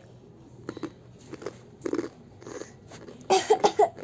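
Crunchy snack chips being bitten and chewed, with scattered sharp crunches. Near the end, a short loud burst of coughing.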